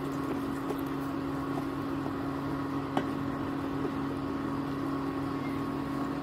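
Steady hum of an induction cooktop under the sizzle of puréed tomato frying in oil. The wooden spatula clicks against the pan about three seconds in.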